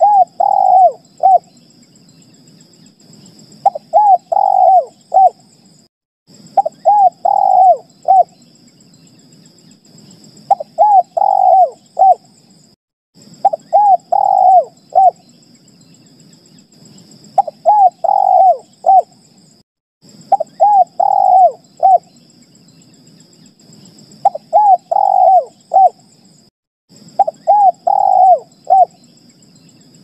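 Spotted dove cooing: a phrase of three or four low coos, the last note short and set apart, repeated every three to four seconds. It is the dove's advertising call, used here as a lure call that draws other spotted doves to answer.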